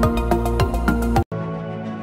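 Background music with a steady drum beat that cuts off abruptly a little over a second in; after a split-second gap a softer, gentler music track without drums starts.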